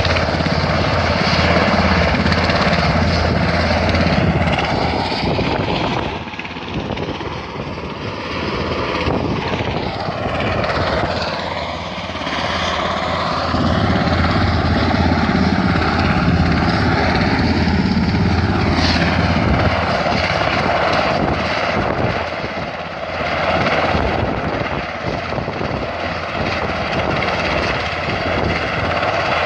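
Search-and-rescue helicopter's turbines and rotor running steadily while it sits on the ground, its loudness dipping briefly a few times.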